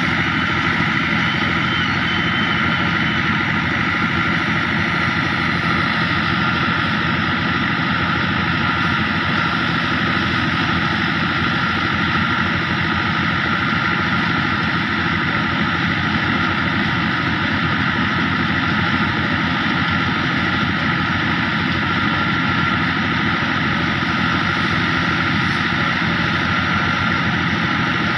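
Fiat 640 tractor's diesel engine running steadily while driving a thresher, the engine and the thresher's drum and fan together making one loud, unbroken drone.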